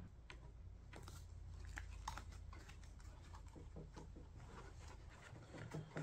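Faint, scattered crinkling and rustling as a new foam gasket is handled and taken from its plastic parts bag, over a low steady hum.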